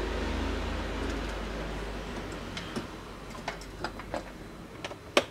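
Scattered light clicks and taps from the laptop and tools being handled, starting about halfway through, with the sharpest one near the end. A low hum fades away during the first half.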